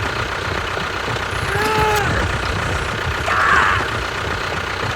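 Engine running steadily with a low rumble, with two short pitched cries about two and three and a half seconds in.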